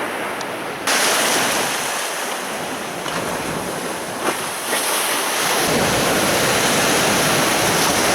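Sea waves breaking and washing on the shore, a steady rush of surf that swells about a second in and again near the six-second mark.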